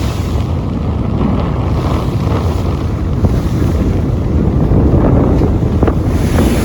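Strong wind buffeting the microphone over the rush of waves around a boat at sea, with a few short knocks.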